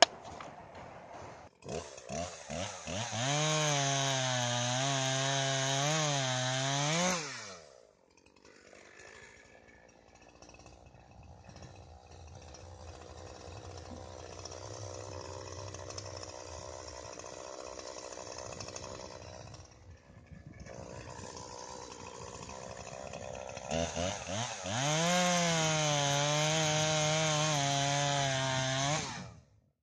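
Poulan Pro PR5020 two-stroke chainsaw starting a couple of seconds in and revving to full throttle for about four seconds before dropping away. After a much quieter stretch it runs at full throttle again for about five seconds near the end, cutting into a log, and cuts off suddenly.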